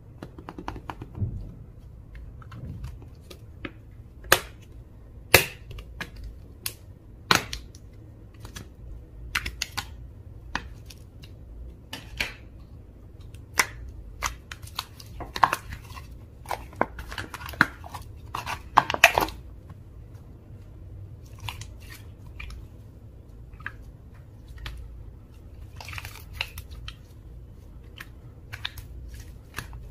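Slime being worked by hand: irregular sticky pops, clicks and crackles as it is stretched, pressed and folded, coming thickest toward the middle.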